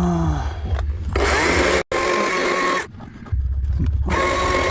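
Chainsaw cutting into wood in two bursts of a second or two each, running at a steady high pitch, with a short drop in between.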